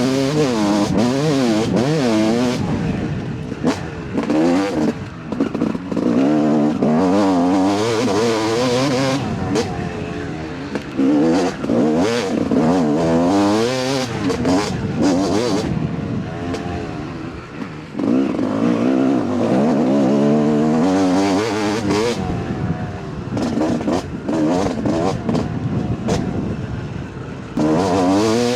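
Yamaha YZ250 two-stroke dirt bike engine ridden wide open, its revs rising and falling again and again through the gears and over the terrain. Sharp knocks and clatter come from the bike over rough ground.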